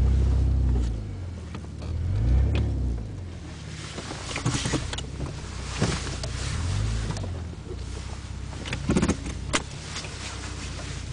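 Toyota Crown GS131's 1G-GZE supercharged straight-six engine pulling at low speed, its revs rising and falling in several short throttle blips as the car creeps over rough ground. Sharp cracks and crackles of twigs and brush snapping under the tyres and against the car come between the blips.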